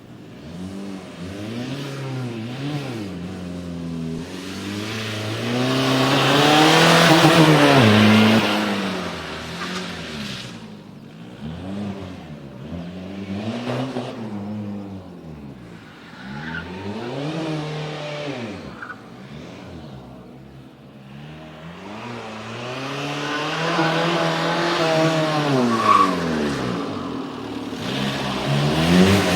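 VW Golf Mk1's 1.9 TDI four-cylinder turbodiesel driven hard. The engine revs up and falls back again and again, every few seconds, as the car accelerates and brakes through the course. It is loudest about a quarter of the way in and again near the end.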